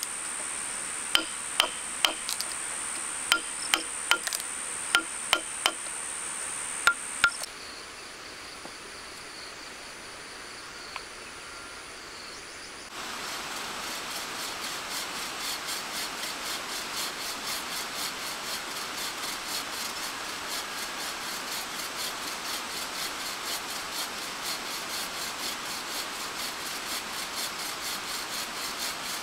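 A chisel struck by hand into a wooden post, sharp knocks over a steady high whine, for the first few seconds. About halfway in, a hand tool rasps into a timber beam in steady, even back-and-forth strokes.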